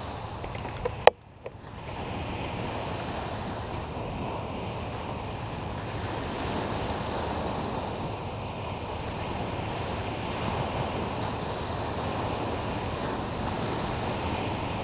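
A sharp click about a second in, then steady wind and Lake Michigan surf noise, with wind buffeting the microphone.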